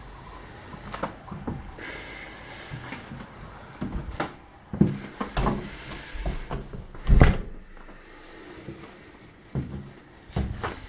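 Irregular knocks and thumps of a door being closed and handled, about a dozen over ten seconds, the loudest about seven seconds in.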